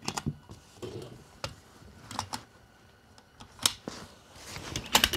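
Metallic clicks and clacks of loading a bolt-action rifle: a cartridge pressed into a detachable box magazine and the magazine handled into the rifle, with a sharper cluster of clicks near the end.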